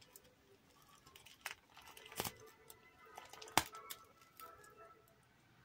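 A few sharp clicks and knocks from handling something, the loudest three spread through the middle, over faint background music.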